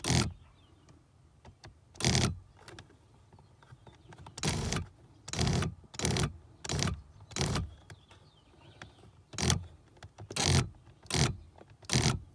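Cadillac STS power seat's rear height-adjust motor running in about eleven short bursts, each under a second, as the seat is driven up and down. The motor is working again now that its drive shaft is seated back in it.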